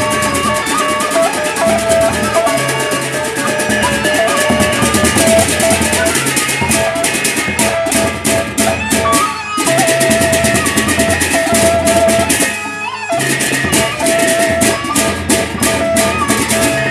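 Sasak gendang beleq gamelan playing: large barrel drums beaten with mallets under rapid clashing of many hand cymbals (ceng-ceng), with a held melodic line and gong strokes. The ensemble drops out for a moment about nine and a half seconds in, then briefly around thirteen seconds, before the full texture returns.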